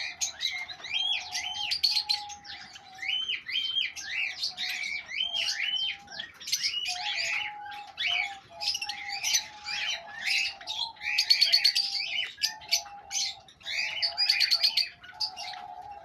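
Several lovebirds chirping and chattering without pause: a dense stream of short, high, squeaky calls.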